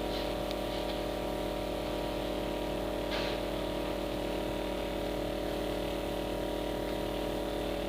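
LCD screen separator machine running with a steady hum while it heats a phone to soften the display adhesive. A brief scrape comes about three seconds in.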